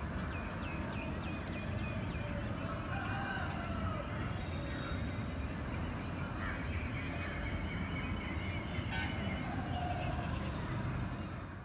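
Morning outdoor bird calls: a quick run of short chirps, about four a second, in the first two seconds, then scattered longer calls that rise and fall, over a steady low rumble.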